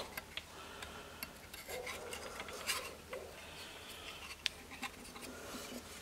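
Faint, scattered clicks and clinks of metal chainsaw parts being handled on a workbench, with one sharper click about four and a half seconds in.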